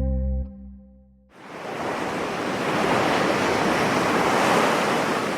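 The last held notes of a synthesized ringtone tune fade out during the first second. Then an ocean surf sound effect swells in, a broad wash of breaking waves that holds and begins to ease off near the end.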